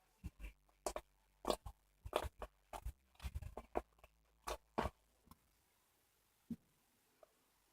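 Iceberg slime being pressed and worked by hand: a quick, irregular run of sharp crackles and pops as its hardened crust breaks, thinning to a few isolated clicks after about five seconds.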